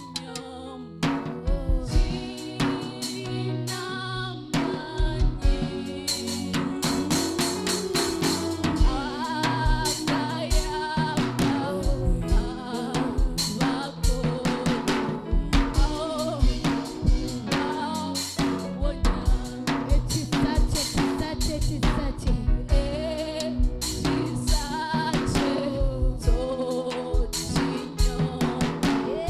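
Live gospel worship music: a drum kit keeps a steady beat with snare and bass drum, under sustained keyboard-like chords and voices singing.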